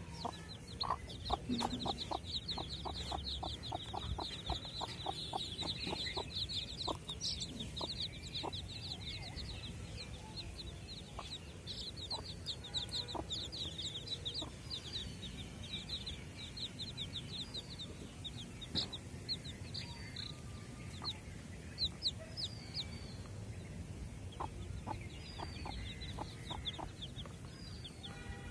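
Desi hen and her brood of chicks: the chicks peep in fast, high cheeps, densely at first and more sparsely in the second half, while the hen clucks low in quick runs about a second in and again near the end.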